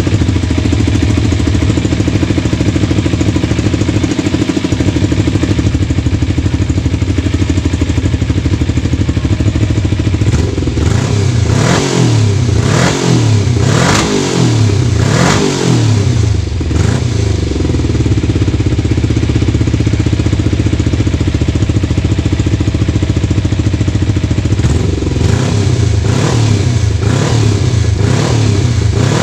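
Motorcycle engine idling, then blipped up and down about half a dozen times in quick succession about a third of the way in. It settles back to idle, with a few lighter blips near the end.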